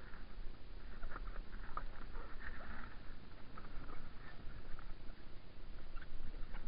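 Kayak paddle strokes: the blades dip and splash, and water drips and patters off them, in scattered short splashes over a low steady rumble.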